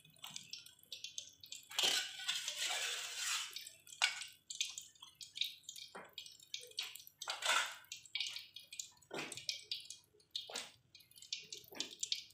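Water splashing and dripping as koro beans are scooped with a metal slotted spoon from a pot of water and dropped into a pot of boiling eggplant, with irregular clinks and knocks of metal utensils against the aluminium pot.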